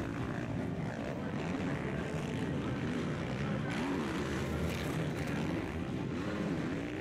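Several motocross bikes racing, their engines revving up and down over and over as the riders jump and take a turn; the engine notes overlap, rising and falling in pitch every second or so.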